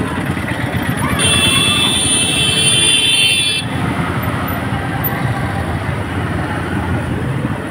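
Dense street traffic din of scooters and motorbikes among a crowd. From a little after a second in, a high-pitched horn sounds steadily for about two and a half seconds, then stops.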